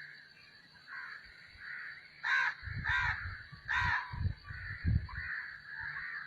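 A crow cawing, with three loud harsh caws in quick succession about two seconds in over softer calling, and low bumping noise underneath.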